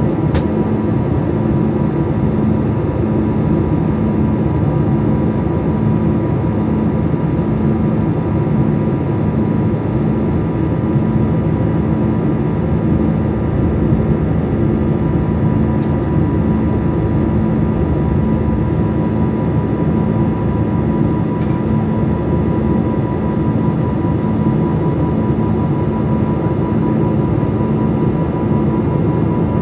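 Steady cabin noise inside an Airbus A320neo in flight: an even rush of air and engine drone, with a steady low hum and a faint high tone running through it.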